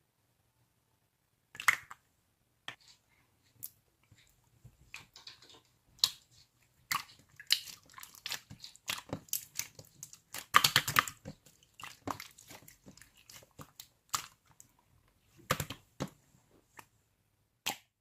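Slime being squeezed and pressed by hand, giving irregular wet clicks, pops and crackles with short pauses. The crackling thickens into a dense run about ten seconds in.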